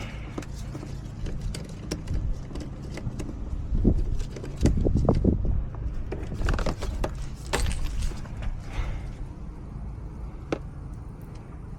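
Clicks, knocks and rattles of a cordless transfer pump being handled and turned over, not running, with a louder bout of knocking about four to five seconds in. Under it a steady low hum of the running air-conditioning system.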